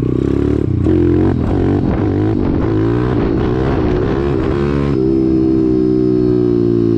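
Pit bike's single-cylinder engine under way, its pitch rising and falling as it is revved through the gears, then holding a steady speed from about five seconds in with the pitch sinking slowly.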